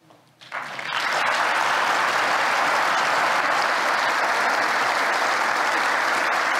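Audience applauding, starting about half a second in and swelling within a second to steady applause.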